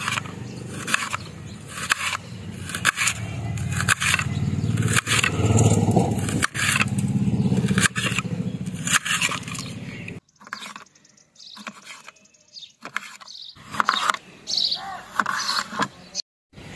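Small knife slicing through an onion held in the hand, in a run of crisp cutting strokes about two a second. From about ten seconds in the cuts turn fewer and quieter as tomatoes are sliced.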